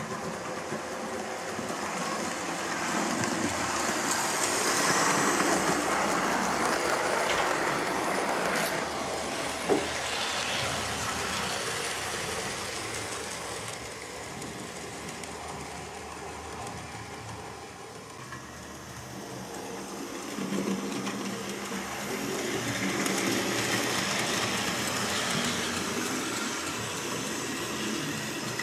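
Hornby model train running around the layout: motor whirring and wheels rattling over the rail joints. It grows louder twice, about five seconds in and again near the end, with one sharp click about ten seconds in.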